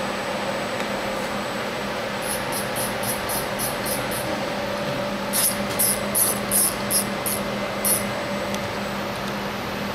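CNC milling machine's axis drive giving short high-pitched whines in quick succession, about four a second, as the axis is jogged with the manual pulse handwheel. There are two runs, the second louder, over a steady machine hum.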